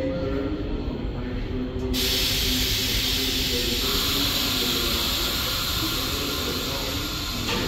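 Stopped R62 subway train's air system venting: a loud steady hiss of escaping air starts suddenly about two seconds in and holds, over the low hum of the standing train. A short click comes near the end.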